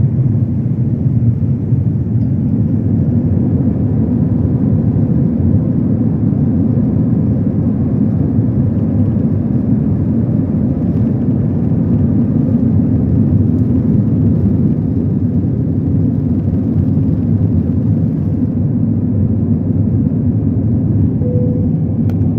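Airbus A320 taking off and climbing, heard from inside the cabin: the jet engines at takeoff thrust give a loud, steady, low rumble.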